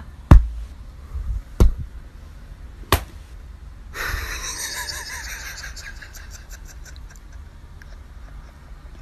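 Three sharp knocks about a second and a half apart, the first the loudest, then a soft hiss with faint rustling from about four seconds in, fading slowly.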